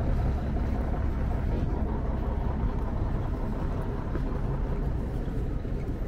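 Wind buffeting the camera's microphone: a steady, loud low rumble.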